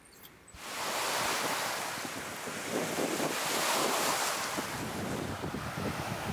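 Choppy, wind-driven lake waves lapping and splashing, with wind buffeting the microphone; it starts suddenly about half a second in.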